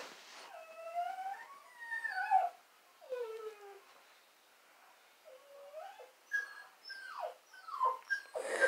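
A dog whining in a series of high, wavering whimpers, several sliding down in pitch, with a short pause in the middle.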